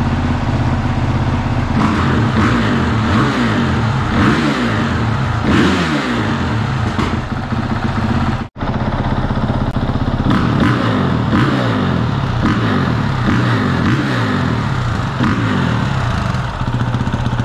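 2022 Honda CRF450R's single-cylinder four-stroke engine idling with quick, repeated throttle blips, the revs rising and falling about ten times. The sound cuts out for a moment about halfway through.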